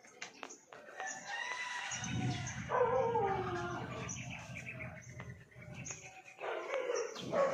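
Birds chirping, with a rooster crowing about two and a half seconds in, its call sliding down in pitch at the end, and a low rumble under it for a few seconds. Another loud call comes near the end.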